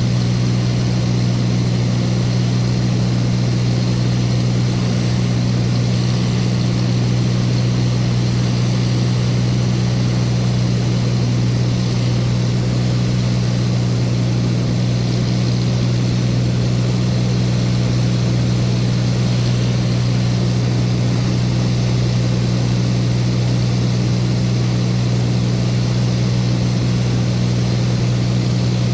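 Light propeller aircraft's engine and propeller droning steadily, heard from inside the cabin in flight.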